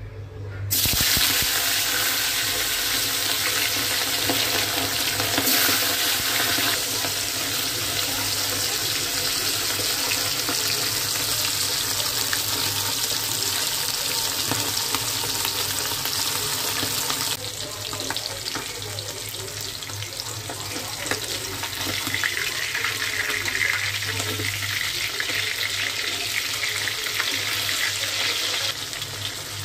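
Whole bata fish frying in hot oil in a kadai: a loud, even sizzle that starts abruptly about a second in as the fish go into the oil.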